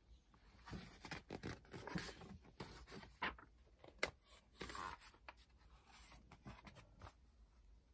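Faint rustling and scraping of paper as a workbook is opened and its pages are turned, in short irregular strokes.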